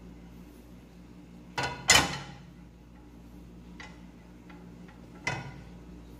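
A skillet knocking against the stove's iron grate and a silicone spatula tapping the pan: a pair of sharp knocks about two seconds in, the loudest, then lighter ticks and another knock near the end, over a low steady hum.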